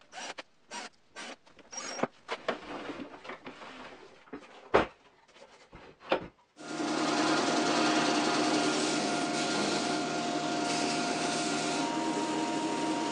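Short irregular bursts of rubbing, scraping and knocking. Then, about six and a half seconds in, a homemade 6x48-inch belt sander starts and runs steadily with a hum.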